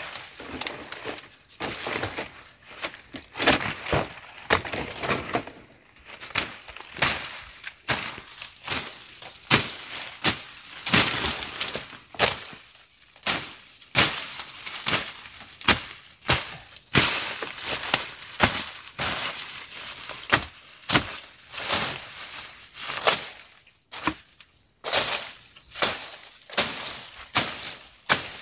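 Machete slashing through brush and undergrowth: repeated sharp chopping strikes at an uneven pace, about one or two a second, each with a short swishing tail.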